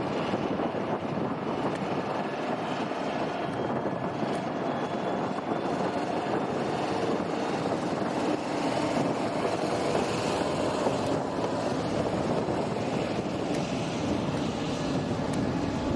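Jet airliner engine noise: a steady noise with a faint tone in it, swelling a little towards the middle, mixed with wind on the microphone.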